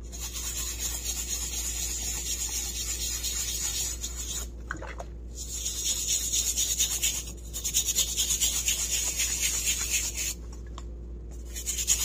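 Stiff-bristled brush scrubbing a wet, soapy cork sheet in quick back-and-forth strokes, a rasping rub that breaks off briefly about a third of the way in and again near the end. The scrubbing is lifting the scorch residue left by laser engraving.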